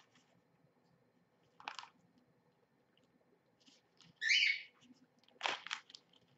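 Bible pages rustling and turning as they are leafed through to find a chapter, in a few short bursts. About four seconds in, a pet parrot gives a short, high, wavering chirp, the loudest sound here.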